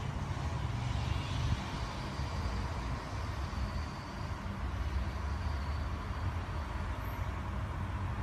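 Steady low rumble of distant road traffic, with no distinct events.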